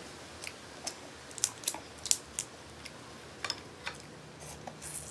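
Shellfish shell being cracked and peeled by hand close to the microphone: about a dozen sharp, irregular cracks and clicks, the loudest a second and a half to two seconds in.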